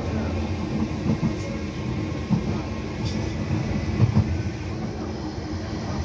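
Docklands Light Railway train running, heard from inside the carriage: a steady low rumble with a few short knocks, at about one, two and four seconds in.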